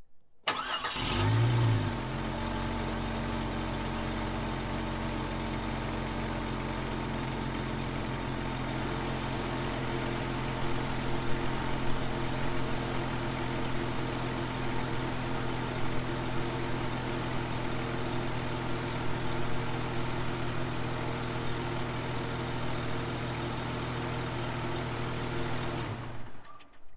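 Jeep Cherokee XJ engine cranked and started, flaring briefly, then idling steadily. Partway through, the remote transmission cooler's twin electric fans are switched on, barely noticeable over the idle. The engine is shut off just before the end.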